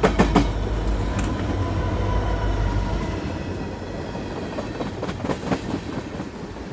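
Train running on rails: a heavy low rumble that eases off about three seconds in, with sharp clicks of wheels over rail joints near the start and again near the end.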